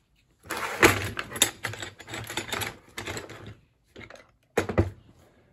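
Small metal hand tools clicking and clattering as they are handled and sorted in a toolbox: a dense run of rapid clicks for about three seconds, then one sharper knock near the end.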